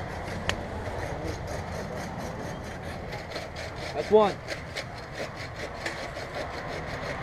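Rhythmic rasping strokes, about three a second, like wood being scraped or sawn, with a sharp click about half a second in. About four seconds in comes the loudest sound, a brief cry that dips and rises in pitch.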